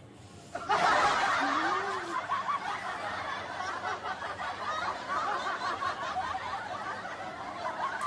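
Prolonged snickering laughter that starts about half a second in and slowly tapers off.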